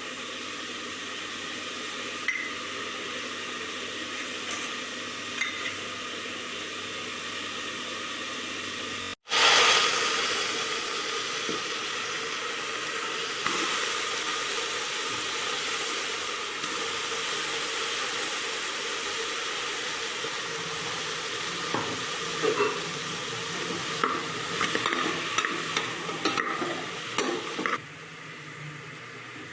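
Food sizzling as it fries in oil in a cooking pan, stirred with a spoon that scrapes and knocks against the pan. The sizzle jumps suddenly louder about nine seconds in and then eases off, and scraping clicks grow more frequent near the end.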